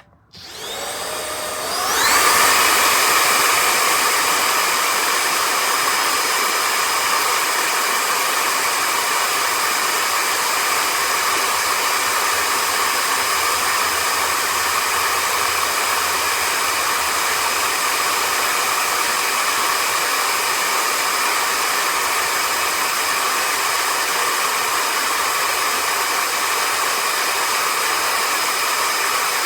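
Vistefly V15s Max cordless stick vacuum cleaner switched on: its motor spins up with a rising whine over about two seconds, then runs steadily with a whine and rush of air.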